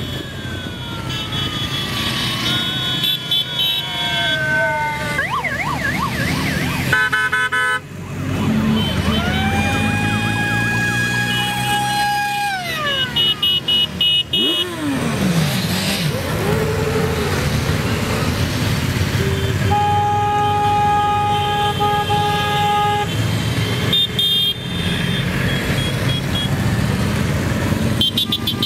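Vehicles in a convoy passing with their engines running and horns sounding over them: several short blasts, a long horn that slides up, holds and then drops away, and later a steady horn held for about three seconds.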